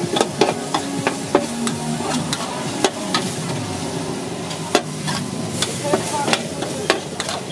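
A metal spatula scraping and clacking on a large flat metal pan as egg noodles and vegetables are stir-fried, with irregular sharp clacks over a steady sizzle of frying.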